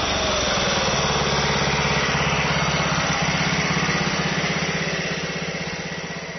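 Honda Super Cub 50's bored-up four-stroke single-cylinder engine running steadily at a fast, even putter through a twin chrome exhaust. The sound fades out near the end.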